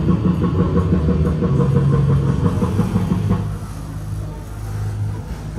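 Steady low engine-like hum of a fairground ride's machinery running, which grows quieter about three seconds in.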